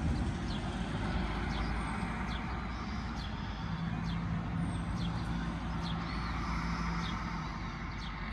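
Road traffic going around a roundabout: a steady rumble of cars, with one vehicle's engine note rising over it for a few seconds in the middle. Short high chirps are scattered through it.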